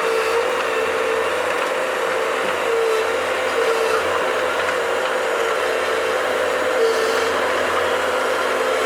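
Bobcat skid-steer loader running steadily while digging, a constant engine drone with a tone that comes and goes.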